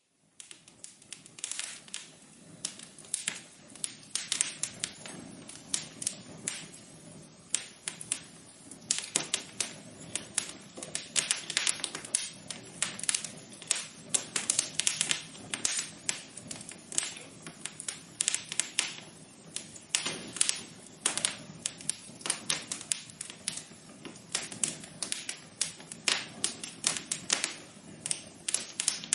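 Wood fire crackling in a fireplace: irregular sharp pops and snaps, several a second, over a soft steady hiss.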